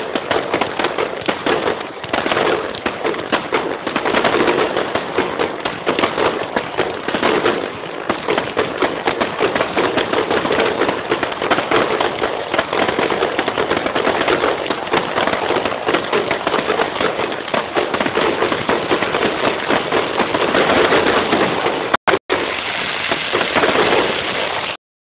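Fireworks display: a dense, continuous barrage of rapid bangs and crackles, cutting out very briefly twice near the end.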